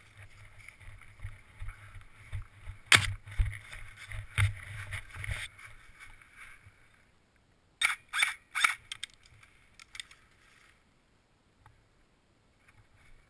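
Running footsteps crunching through dry leaf litter, with gear rustling and bumping against the body-worn camera, fading out about six seconds in. About eight seconds in come three sharp cracks in quick succession.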